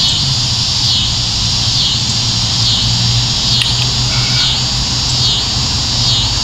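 Insects chorusing: a steady high buzz that dips in a regular pulse a little more often than once a second, over a low steady hum. A single faint click comes a little past halfway.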